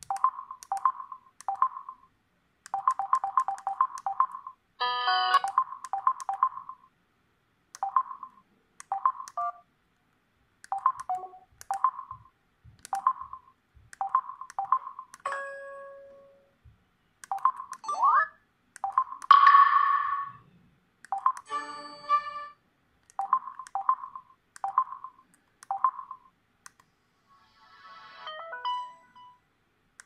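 LG Tribe (KS360) mobile phone beeping as its keys are pressed while scrolling its sound menus, a short beep per press. A few short preview tones of its slide and power on/off sounds play between the beeps, one of them a rising glide.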